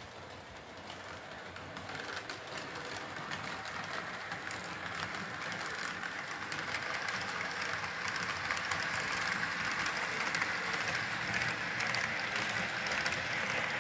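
HO-scale model of the ÖBB CAT double-deck train running on layout track: a steady whirr of wheels and motor dotted with fast little clicks over the rails, growing louder as the train comes closer.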